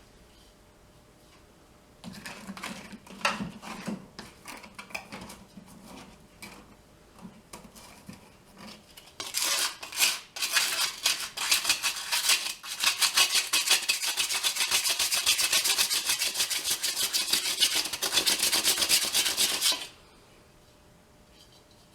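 Scattered clatter of metal being handled, then from about 9 s in a dense, rapid scraping chatter as a bit cuts the centre hole through a steel VW Beetle hubcap. It stops abruptly about 20 s in.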